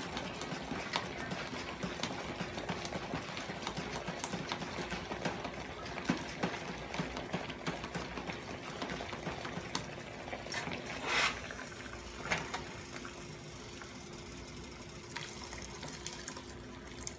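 A spoon or whisk stirring a flour-and-broth slurry briskly in a plastic measuring cup: a quick run of small scraping, tapping clicks over a simmering pan, with a louder knock about eleven seconds in. The stirring eases off after about twelve seconds, and near the end hot broth is poured from the tilted pan into the cup.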